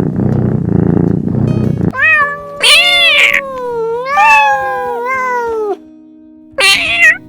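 Domestic cat meowing: after about two seconds of a loud, pulsing low rumble, it gives two long drawn-out meows that rise and fall in pitch, then a short meow near the end.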